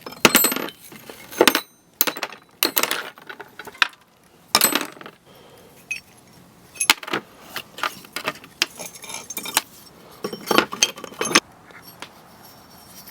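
Irregular metallic clinks and scrapes of metal parts or tools being handled, a dozen or so sharp strokes unevenly spaced, some briefly ringing.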